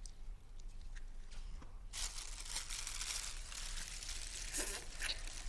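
Crinkling, rustling noise starting about two seconds in, with a few sharp clicks near the end.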